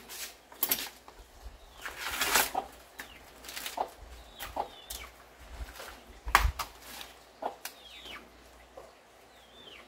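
Green corn husks being torn off ears by hand: short rips and crackles of the leaves, one longer rip about two seconds in and a sharp snap past the middle. A hen gives a few short falling calls now and then.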